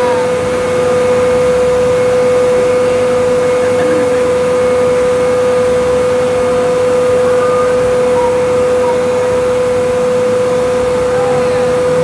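Aerial ladder fire truck running, a loud steady mechanical drone with a constant whine held on one pitch.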